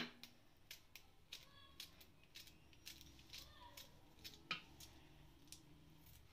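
Cut okra pieces being tossed by hand in a stainless steel plate: light, irregular clicks and taps, some with a faint metallic ring, and a sharper click right at the start.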